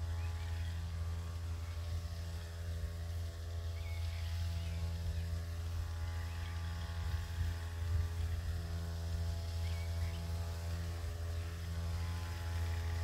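Small engine-driven pesticide spray pump running steadily at a constant speed, with a low, even hum.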